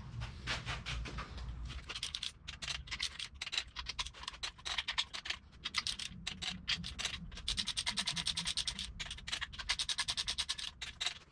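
Ratchet clicking in quick, even strokes while the main cap bolts of an LS 6.2 block are run down, the clicking most regular in the second half.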